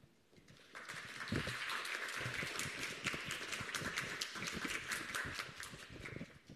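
Students applauding, a dense patter of many hands clapping that builds about a second in and dies away near the end.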